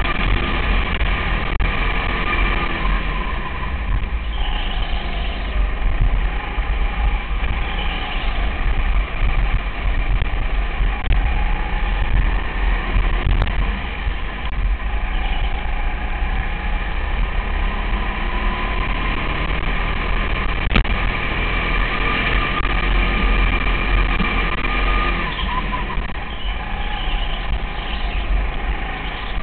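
Racing go-kart's 200cc Honda single-cylinder four-stroke engine running at speed, a continuous drone with a strong low rumble, its pitch shifting a little as the kart slows and accelerates through the turns.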